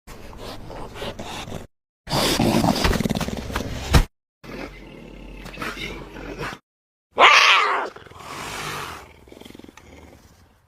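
Four separate animal roars and growls edited one after another, each cut off by a short stretch of dead silence; the last starts loudest and fades away.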